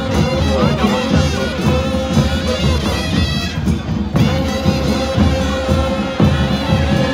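Loud traditional procession music: drums beating under a wind instrument holding long high notes, which break off briefly about two and four seconds in.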